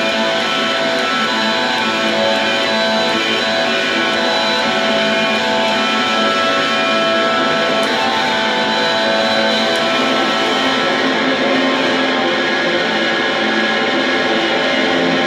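Electric guitar played with a bow: a steady, sustained drone of several held notes sounding together, with no plucked attacks.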